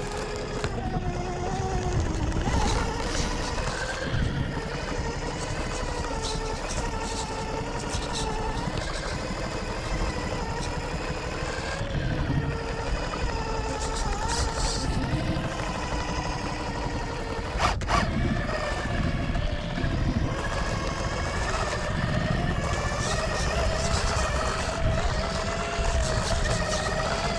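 Losi Night Crawler RC rock crawler driving over boulders: its electric motor and geared drivetrain whine, the pitch rising and falling with the throttle, over the scrape and knock of the tyres and chassis on rock. A single sharp knock comes about 18 seconds in.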